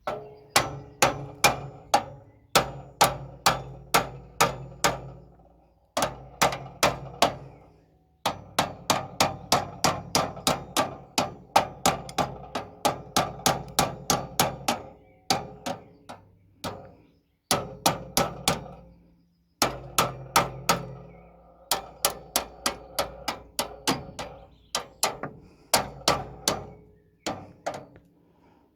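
Hammer blows on metal, about three to four a second, each ringing briefly. They come in runs that stop abruptly several times.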